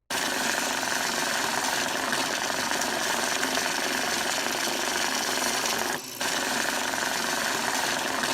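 Electric bill-counting machine running, banknotes riffling through it in a rapid, steady whir. It starts abruptly and breaks off for a moment about six seconds in before carrying on.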